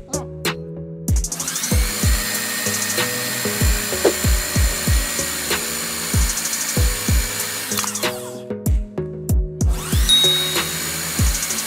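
Background music with deep bass-drum hits. Over it, a power tool runs steadily twice: first from about a second in for about seven seconds, then again near the end.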